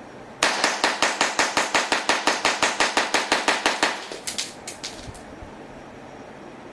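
Tanaka SIG P226 model gun firing cap-loaded cartridges in a rapid string of about twenty sharp shots, about six a second. A few fainter clicks follow.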